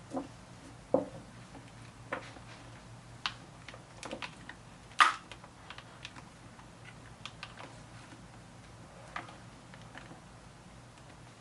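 Irregular light clicks and taps from handling small headset speakers and pressing them onto Velcro pads inside a motorcycle helmet. The loudest click comes about five seconds in.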